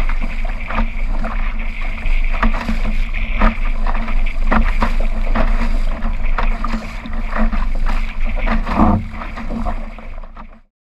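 Laser sailing dinghy pushing through chop: wind buffets the bow-mounted camera's microphone with a low rumble, while waves slap and splash against the hull in irregular bursts. The sound cuts off suddenly near the end.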